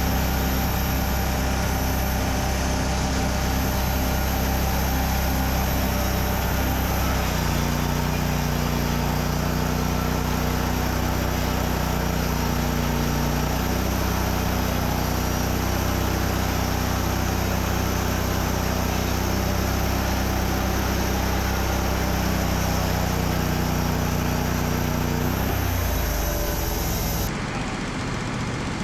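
WoodMizer LT35 sawmill's engine running steadily under load as the band blade saws through a cherry log. Its pitch steps up about seven seconds in, and near the end the engine note drops away.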